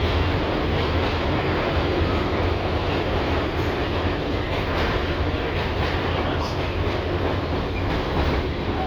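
An LVS-2009 tram running along the track: a steady rumble of wheels on rail, with a few faint clicks.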